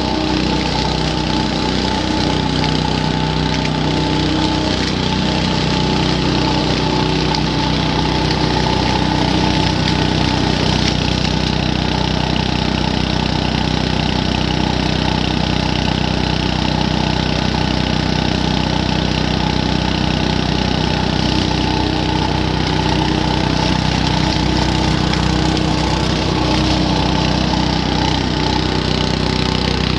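Small-engined garden leaf vacuum running steadily at a constant speed, with a rushing air noise over the engine's drone.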